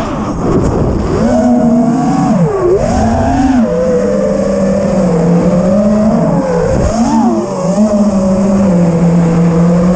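FPV freestyle quadcopter's motors whining, the pitch rising and falling with the throttle, dropping off briefly about a second in, near three seconds and near seven seconds. The pilot offers this sound as the sign of a smooth, well-dialled tune on the quad's new gyro.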